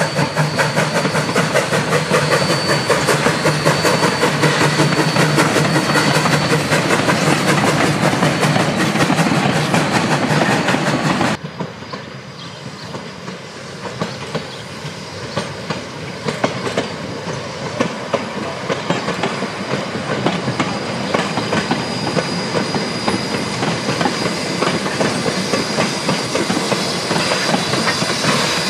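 1877 Rogers 4-4-0 steam locomotive and its wooden carriages rolling along the track, with rapid clickety-clack of wheels over the rails. About eleven seconds in the sound drops suddenly to a quieter, more distant run of the train. It grows gradually louder again near the end as the locomotive draws close.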